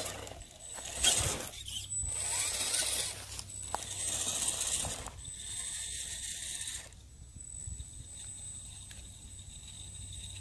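Radio-controlled scale crawler truck's electric motor and geared drivetrain whirring in short spurts as it crawls over dirt and rocks, over a thin high whine. The sound drops to a quieter, steadier level about seven seconds in.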